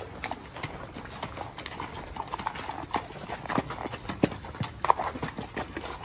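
Horse hooves clopping at a walk on the wet, rocky bed of a shallow creek, in an irregular run of sharp knocks.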